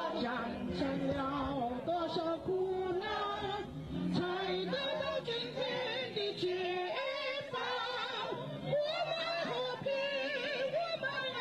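A song sung over musical accompaniment, the sung melody moving in short phrases.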